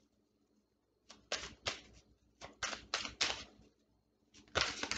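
Tarot cards being shuffled and handled: a run of short, sharp card slaps in three irregular clusters.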